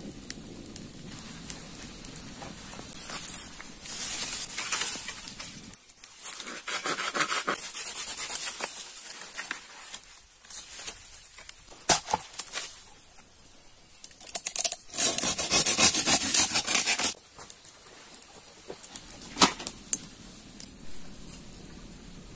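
Footsteps crunching and rustling through dry leaf litter in uneven bursts, with a few sharp snaps.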